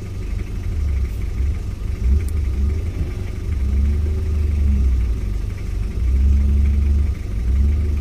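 Off-road 4x4's engine revving in repeated surges under load as it crawls up a steep climb over large rocks.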